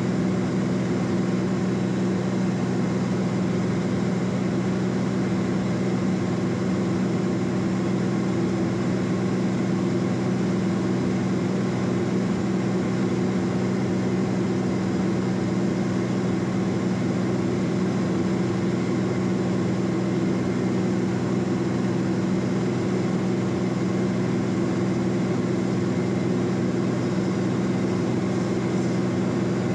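Cessna P210 Centurion's engine and propeller droning steadily in flight, heard from inside the cabin, at an even pitch and level with no power changes.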